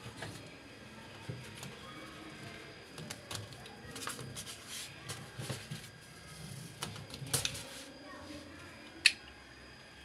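Plastic washing-machine hoses handled and moved by hand: scattered clicks, rubs and knocks, with a sharp click about nine seconds in.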